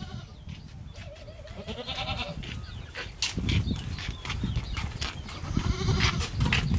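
Goat bleating: one long quavering call about a second in, over a steady low rumble and scattered clicks.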